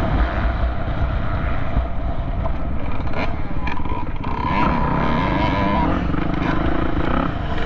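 Off-road vehicle engine running, its pitch rising and falling with changing revs, with a few sharp knocks about three to four seconds in.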